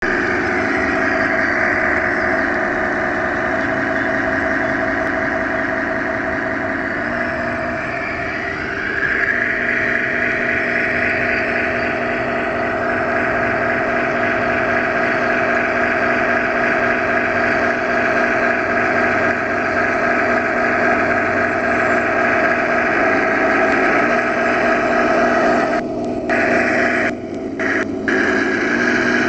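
Tamiya 1/16-scale radio-controlled Jagdpanther model tank driving, a steady engine-like mechanical drone that shifts in pitch about eight seconds in and drops out briefly a few times near the end.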